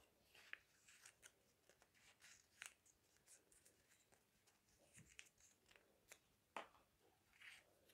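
Faint crinkling and rustling of a small folded slip of paper being unfolded by hand, heard as a scatter of short, soft crackles.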